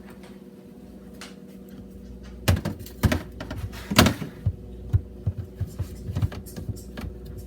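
Plastic food containers knocking and sliding against fridge shelves as they are pushed in and straightened: a run of sharp thumps and clicks starting a couple of seconds in, the loudest about four seconds in. A low steady hum runs underneath.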